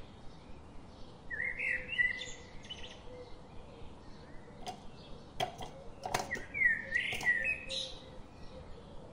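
A bird chirping in two short bursts of quick, warbling whistles, about a second in and again about six seconds in. A few sharp clicks come in between.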